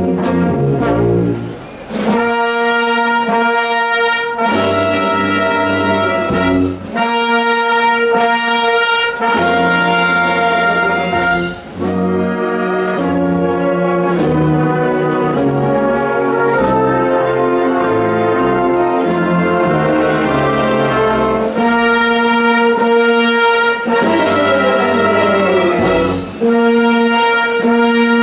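Spanish wind band (banda de música) playing a procession march, led by brass with trumpets and trombones in sustained chords. There are a few short breaks between phrases.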